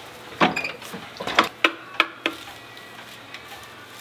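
Broom winder working as broom corn is wired onto a wooden handle: a handful of sharp clicks and knocks in the first two and a half seconds, then quieter.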